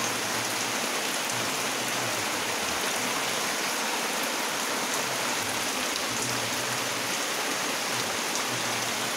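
Heavy rain falling steadily on a wet concrete yard and puddles, an even, unbroken hiss.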